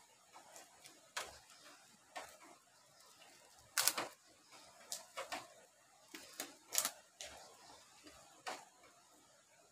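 A metal spoon clinking and scraping against a plate while someone eats: a dozen or so light, sharp clicks at irregular spacing, the loudest a quick pair about four seconds in and another near seven seconds.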